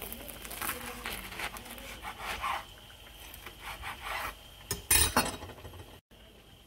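A knife sawing through crisp, batter-fried bread pakoras on a wooden cutting board: a run of uneven scraping, crunching strokes, then one short, louder noise about five seconds in.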